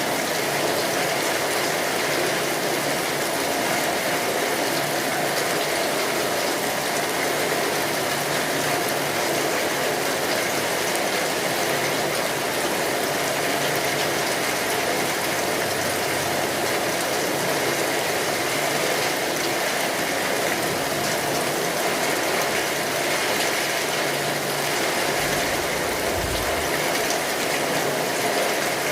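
Steady heavy rain drumming on a tin roof, mixed with the fine crackle of a wood fire. A brief low rumble comes near the end.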